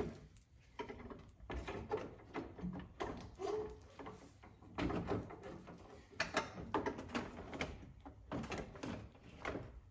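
Irregular plastic knocks, clicks and scraping as a car headlight assembly is handled and pushed into its mounting.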